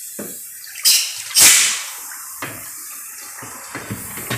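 Water splashing and sloshing in a test tank as a car radiator is worked under water and lifted out during a leak test. Two short, loud splashes come about a second in.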